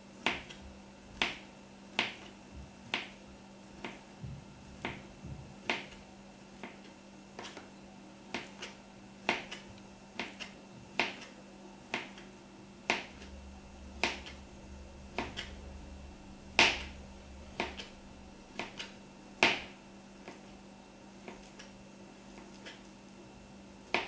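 Small kitchen knife slicing a banana into rounds on a plastic cutting board: the blade taps the board with a sharp click about once a second, unevenly spaced, all through.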